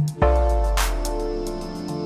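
Background music: sustained instrumental tones with light, evenly spaced percussion and a deep bass note that comes in about a quarter second in and slowly fades.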